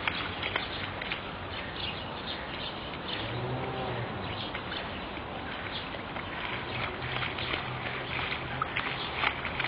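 Footsteps or light taps on a hard surface, scattered irregularly over a steady outdoor background noise.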